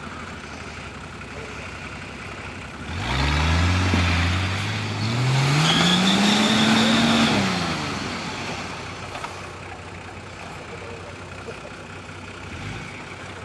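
Nissan Patrol off-roader's engine revved hard under load as it climbs a steep snowy bank: about three seconds in the note jumps up and rises in pitch for several seconds, then drops back to a steady low running note.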